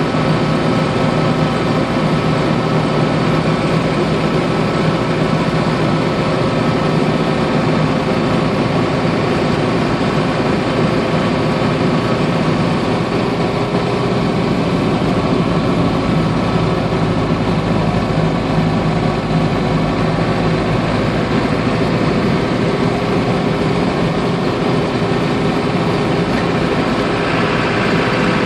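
The Land Rover 109's transplanted 2002 Defender Td5 five-cylinder turbo diesel running steadily while driving, with road and drivetrain noise under it. A higher note joins near the end.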